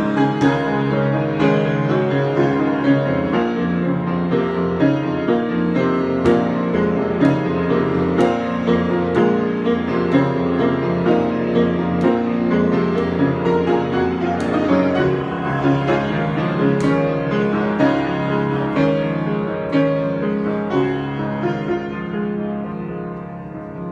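Solo piano improvisation, with a steady flow of struck notes over held low notes. It grows quieter in the last few seconds as the playing dies away.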